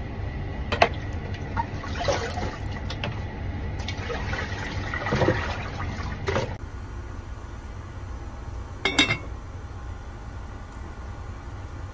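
Kitchen prep sounds: a cleaver blade clicking against a small bowl as chopped garlic is scraped in, then a plastic colander of broccoli being handled, over a steady low rushing noise. Partway through the sound changes to a lidded pot on the stove, with one sharp clatter about three-quarters through.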